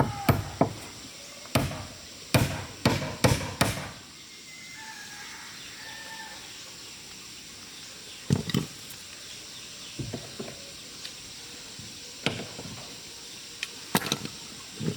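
Sharp knocks of a tool striking timber: a quick run of about seven blows in the first four seconds, then single blows every two seconds or so.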